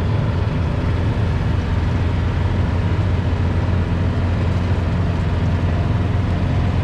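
Engine of a small utility vehicle running at a steady speed while riding in it, a constant low drone with road and wind noise.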